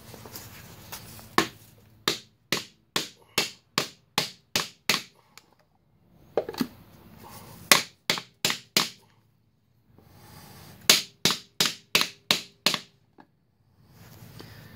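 Hammer striking a white plastic pipe-collar driver, tapping a new rear main seal and its metal wear sleeve into the rear housing of an LB7 Duramax diesel. Three runs of sharp taps, a little over two a second, with short pauses between.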